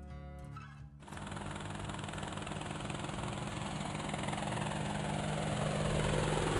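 Helicopter sound effect, engine and rotor running steadily, fading in about a second in and growing louder as the helicopter approaches.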